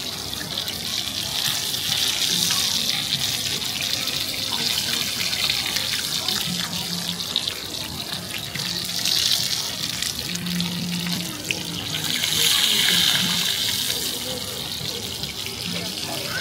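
Oyster-and-egg bakes sizzling in hot griddle pans: a steady hiss that swells louder a few times.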